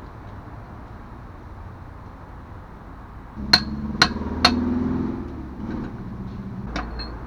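Hammer tapping a new oil seal into a truck's rear hub: three sharp metallic strikes about half a second apart past the middle, over a brief low hum, then two lighter taps near the end.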